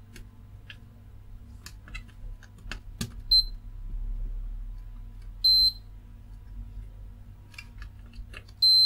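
Digital multimeter beeping as its probe tips are touched to component pins on a circuit board: a short beep about three seconds in, another about five and a half seconds in, then a steady beep near the end that signals a reading like a short circuit across a diode. Light clicks of the probe tips on the board come in between.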